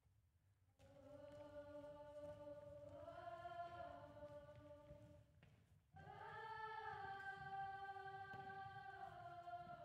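Quiet choir of voices singing long held notes in two phrases, the first stepping up in pitch partway through, with a short break about halfway.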